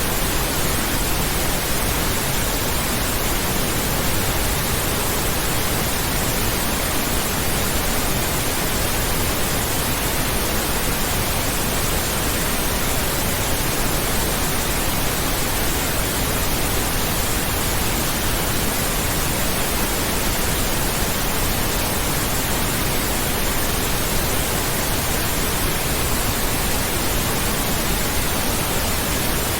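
Steady pink noise: an even, unbroken hiss spread across all pitches, with no change in level.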